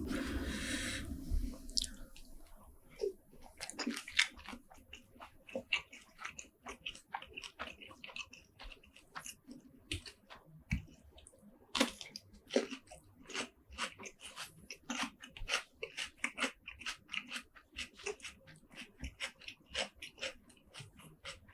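Close-miked chewing of seafood, dense wet smacks and small crunches coming many times a second. A louder rushing noise fills the first second or so.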